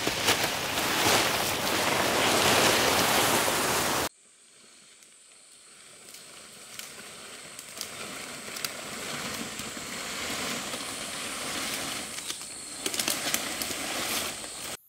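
Close, loud rustling and crackling of large dry and green palm fronds being gathered and dragged through undergrowth, cut off suddenly about four seconds in. Then quieter outdoor background with a thin steady high tone and scattered light rustles, with a burst of leaf crackling near the end as the frond bundle is handled and set down.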